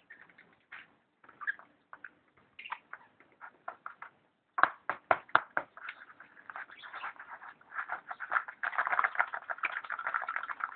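Irregular scratching, tapping and rustling of a tube being worked at where it is wedged in a desk. A quick run of about five sharp knocks comes about five seconds in, and the scratching grows denser near the end.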